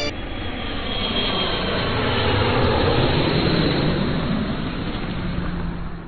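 Jet engines of a Boeing 787-8 airliner running, a steady noisy rumble that starts to fade near the end.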